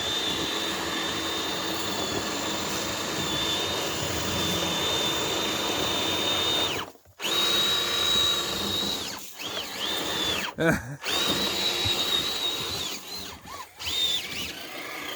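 Electric motor and geared drivetrain of an RC crawler truck whining steadily under throttle, pushing through snow. The whine cuts out sharply a few times as the throttle is let off, and it sags in pitch when the truck bogs down.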